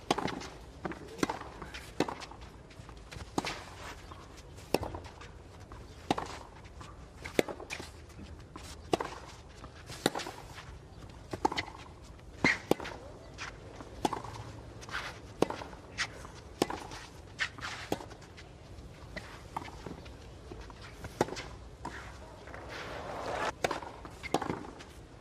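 Tennis ball being struck by rackets and bouncing on a clay court during rallies: a long run of sharp pops about a second apart, with players' footsteps in between. Crowd noise swells near the end.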